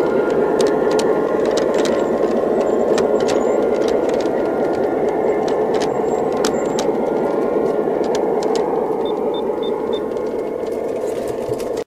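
G scale model train cars rolling past on garden-railway track: a steady rumble of wheels on rail with scattered sharp clicks, gradually easing toward the end.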